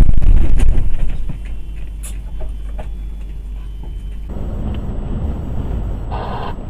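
Truck cab driving noise: a steady low engine and road rumble, loudest in the first second, then quieter and changing at a cut about four seconds in. A brief higher-pitched sound comes near the end.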